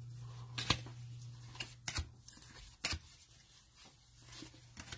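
Trading cards being handled and flipped through one by one, giving a few short sharp clicks and flicks, over a steady low hum.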